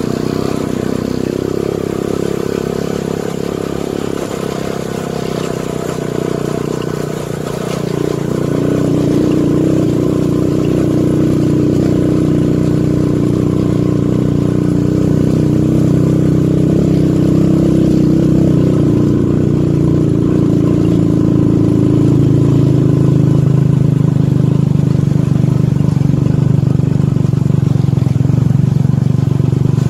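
Motorcycle engine running steadily under way, getting louder and pulling harder from about eight seconds in.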